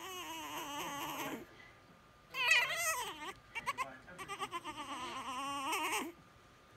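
French Bulldog puppy yelling in long, wavering cries to be picked up. One cry comes first, then a pause. About two seconds in comes a louder, higher cry, then a few quick short yelps, then drawn-out wavering cries that stop shortly before the end.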